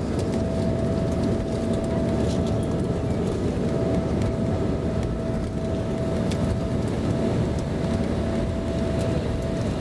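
Cabin noise of an Embraer E-Jet taxiing: the underwing turbofans running steadily at low power, a constant rumble with a steady whine, and a few light rattles.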